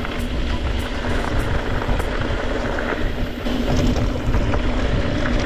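Wind buffeting an action-camera microphone and tyre noise while riding an e-mountain bike, with a steady low hum under an uneven rumble.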